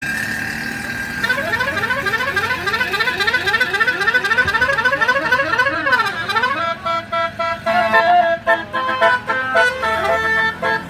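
Bus telolet horn, a Basuri multi-tone horn set, playing: a held tone for about a second, then a run of fast rising-and-falling glides, then a tune of short separate notes from about halfway on.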